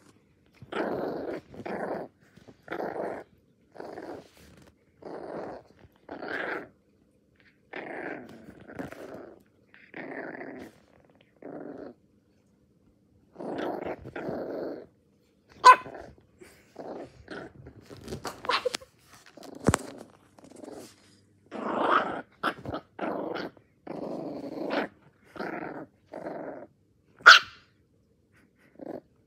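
Small dog growling and barking in a long run of short bursts, about one a second, with a few sharper, louder yaps in the second half.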